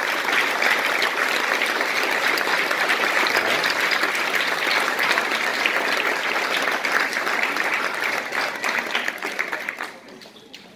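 Audience applause: dense, steady clapping from many hands that tapers off near the end.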